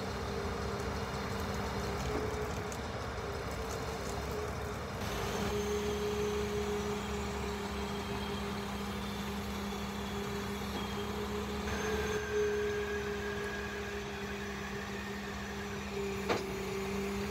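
Scania P400 crane truck's diesel engine running while it drives the hydraulics of the truck-mounted loader crane as the boom is raised and extended: a steady drone with a humming tone. It grows louder about five seconds in, and a single sharp click comes near the end.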